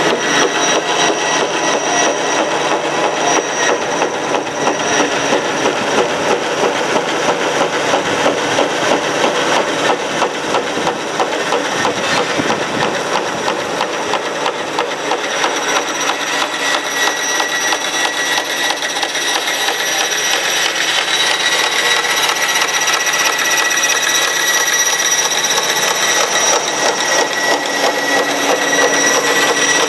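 Vertical bandsaw blade cutting at an angle through HDPE double-wall corrugated drainage pipe: a loud, continuous rasp over a steady high whine. The rasp rises and falls as the blade moves from the thick to the thin parts of the corrugations.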